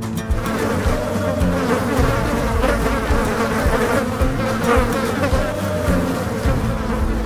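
Dense buzzing of a swarm of insects, wavering steadily, cutting in abruptly and ending abruptly near the end.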